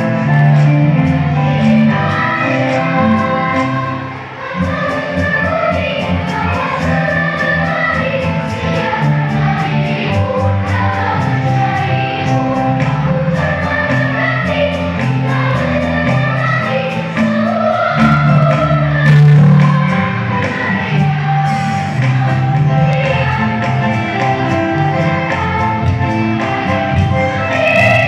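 A choir singing a song, with sustained sung notes over a low accompaniment.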